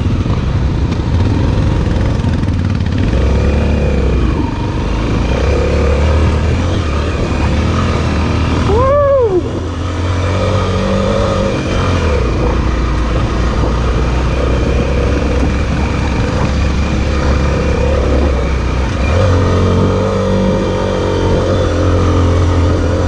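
BMW F800 motorcycle running steadily with a whine above the engine note that rises and falls in pitch, most clearly once about nine seconds in; the owner puts the noise down to a tight clutch.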